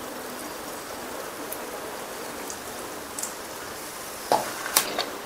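Sweet bonda batter balls deep-frying in hot oil in a steel kadai: a steady sizzling hiss with faint crackles as each ball of batter is dropped in. A few short, louder sounds come near the end.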